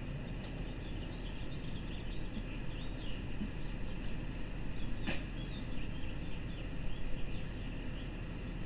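Outdoor ambience with no siren sounding yet: small birds chirping over a steady low rumble, with one sharp click about five seconds in.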